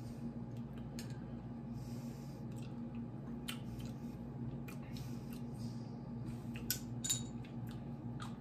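Small clicks and taps from handling a glass hot-sauce bottle and a wooden tasting spoon, with two sharper taps about seven seconds in, over a steady low hum.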